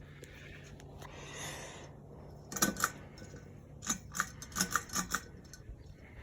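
Buttons or switches on a ceiling fan's wall control clicking: two sharp clicks, then a quick run of about six more, over a steady low hum.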